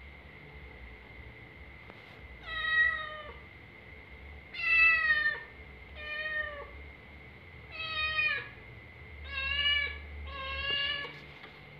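A domestic cat meowing six times at the door, each meow about half a second to a second long, asking to be let into the room.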